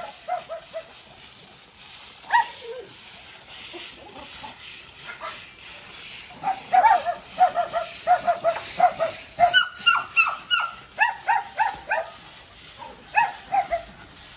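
Dogs barking in quick, high-pitched barks. The barks are scattered at first, then come several a second from about six seconds in, easing near the end.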